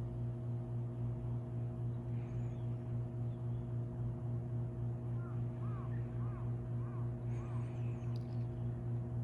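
TAIYOKOKI CVG-13 grinding machine running with a steady low electric hum that pulses slightly, about twice a second. Faint high chirps come in several times in the second half.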